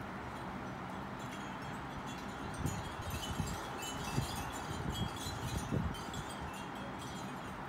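Light metallic tinkling: a cluster of short, high ringing tones from about two and a half to six seconds in, with a few soft knocks among them, over a steady background hiss.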